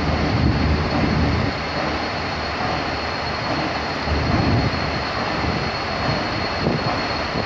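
Irish Rail 071 class GM diesel locomotive running as it comes slowly into the platform. The engine note is heavy for the first second or so, then settles into a steadier rumble.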